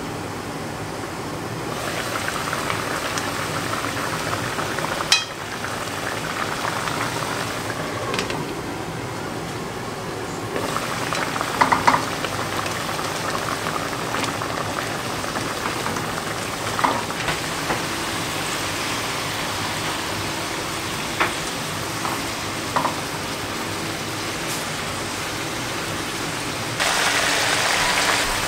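Chicken pieces in sauce simmering in a frying pan, a steady bubbling hiss, with a few short clinks of the glass lid and a spoon against the pan as it is stirred. The bubbling gets louder near the end.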